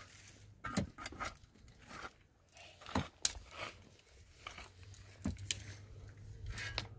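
Irregular crunches and sharp clicks, several spread out with quiet gaps between them.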